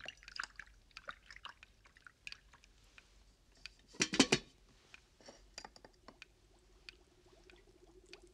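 Water poured from a kettle into a cup, with small clinks of metal and china, and a short cluster of louder clatter about four seconds in. A low steady hum comes in near the end.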